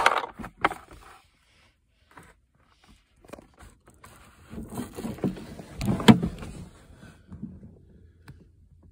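Hard plastic interior trim being handled, with irregular scraping and knocking and one sharp knock about six seconds in.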